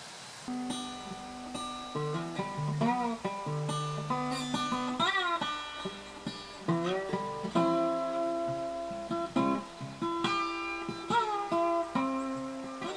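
Acoustic guitar music, plucked and strummed notes with a few bent notes, starting about half a second in.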